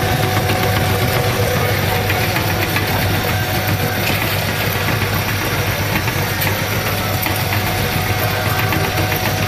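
Meat-grinding machine running steadily with a constant hum and light rattle, grinding maggots into a fine mash.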